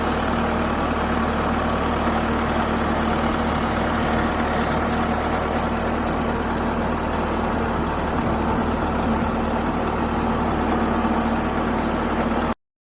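Kubota MX5400 tractor's four-cylinder diesel engine running steadily at an even pitch. The sound cuts off abruptly near the end.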